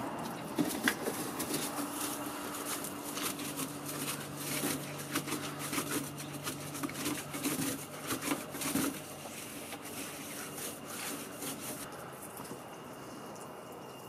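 Water-fed bristle brush scrubbing glass door panes in irregular strokes, with a low steady hum underneath for the first half; the scrubbing fades out about nine seconds in.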